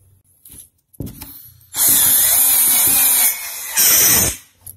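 Cordless drill/driver with a long pocket-hole bit driving a screw into 18 mm melamine: one run of about a second and a half, a brief pause, then a shorter final burst as the screw seats. The sound shows the driver tightening the screw well.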